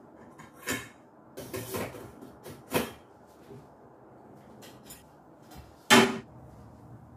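Stainless-steel pots and lids clanking as they are put away in a kitchen cabinet, several knocks in the first three seconds, then the cabinet door shut firmly about six seconds in, the loudest sound.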